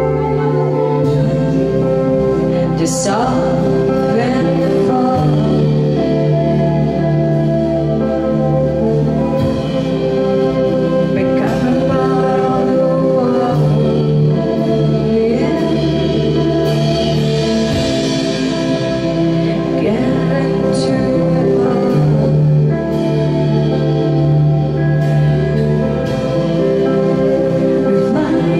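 Live rock band playing: a woman singing into a microphone over electric guitars, bass and drums, with steady held chords and occasional cymbal or drum strikes.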